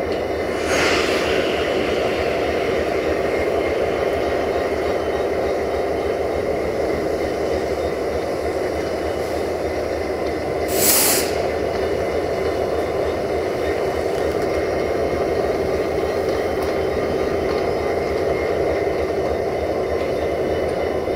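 Siemens Desiro VT642 diesel railcar's engine running with a steady drone as the train pulls away. Two short hisses of released compressed air break through, one about a second in and a louder one around eleven seconds.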